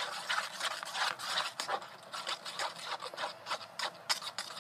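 A utensil stirring and scraping around a small bowl, mixing scent into clear-glue slime before the activator goes in; quick, uneven scraping strokes.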